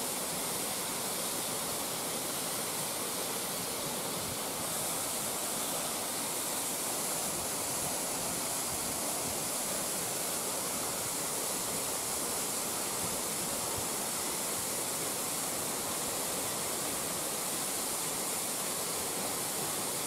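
Rushing water: a mountain stream pouring through the openings of a small stone weir and tumbling over rocks, a steady rush and hiss that turns slightly brighter about five seconds in.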